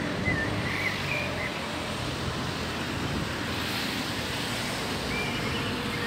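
Steady wind noise on the microphone, with a few short bird chirps in the first second and again near the end.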